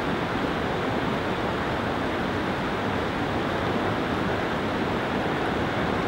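Heavy whitewater rushing and crashing over boulders in high flow: a steady, even rush with no breaks.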